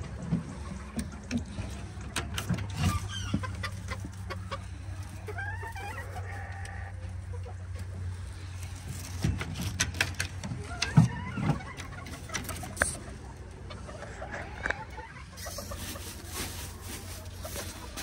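Old English game and Azteca bantam chickens clucking and calling on and off, over a steady low hum. Scattered sharp knocks and clatters run through it, the loudest about eleven seconds in.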